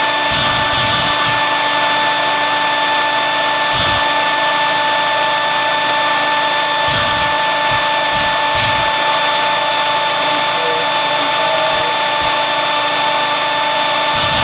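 Blower drawing wood gas through a gasifier and wet scrubber, running with a steady whine over a rush of air as the gas vents from the outlet pipe.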